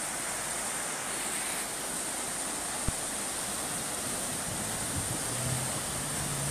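Steady rush of a fast, muddy flood torrent, with one brief click about three seconds in.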